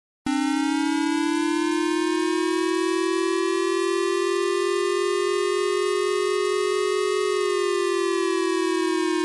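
Electronic warning siren wail starting abruptly just after the start, its pitch climbing slowly for about seven seconds and then beginning to fall.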